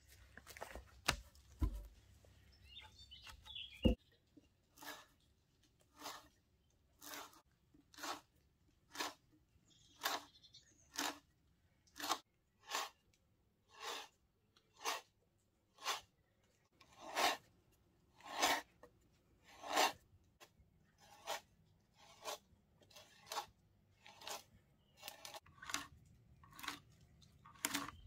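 T-handle hand auger boring into a log: a crunching, rasping cut about once a second as each turn of the handle shaves wood. A few knocks in the first four seconds, the sharpest about four seconds in.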